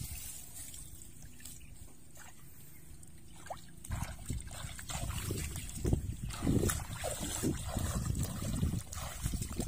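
Shallow muddy water splashing and sloshing as hands grope about in it, irregular and getting louder from about halfway through. Scattered small clicks come before.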